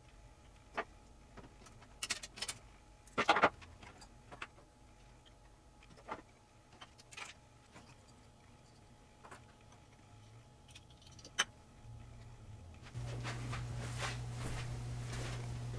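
Plastic keys of a Roland PC-300 MIDI keyboard clicking and snapping as they are pried off one after another: scattered sharp clicks, the loudest cluster about three seconds in. About thirteen seconds in, a steady low hum comes in.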